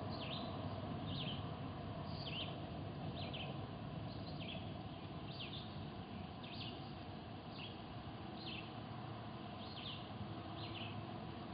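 Small birds chirping: short, high chirps, each a quick falling note, repeated over and over about once a second, over a steady low hum and wash.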